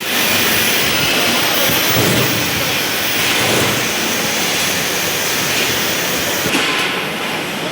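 Welding arc crackling and hissing steadily, with the dense frying sound of a continuous weld bead being laid.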